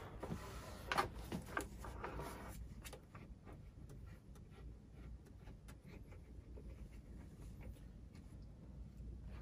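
Handling noise of an 8-inch Schmidt-Cassegrain telescope tube being fitted by its dovetail onto the mount's fork arm: a few knocks and clicks in the first three seconds, the loudest about a second in, then only faint light ticks.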